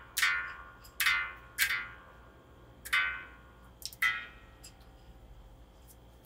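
Les Paul-style electric guitar's freshly fitted strings picked one at a time, about six single notes that each ring and fade, as the new strings are tuned.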